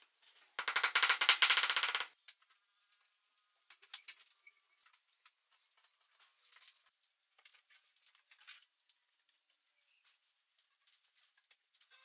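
Cordless impact driver hammering a screw home in one burst of about a second and a half, starting just after the start, followed by faint clicks and handling of the tool and workpiece.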